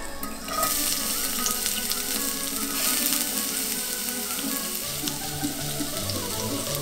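Finely chopped onion hitting hot oil in a cast-iron skillet and sizzling, with small pops; the sizzle starts suddenly about half a second in. Background music plays underneath.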